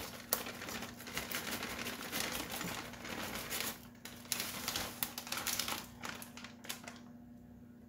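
Plastic bag crinkling as diced chicken chunks are shaken out of it into a ceramic baking dish, with many small clicks. It dies down near the end.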